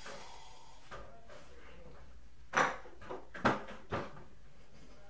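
A few short knocks and clunks of things being handled on an office desk, the loudest about two and a half seconds in and again about a second later.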